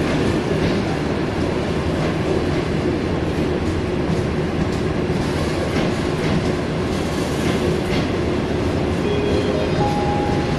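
Conventional passenger coaches rolling slowly past on the station track: a steady rumble of wheels on rail, with a steady hum running underneath.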